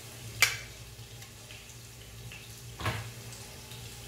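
Steady low kitchen hum with a faint hiss, broken by two sharp clinks of a utensil against a glass dish. The first, about half a second in, is the louder; the second, near three seconds in, comes with a dull knock.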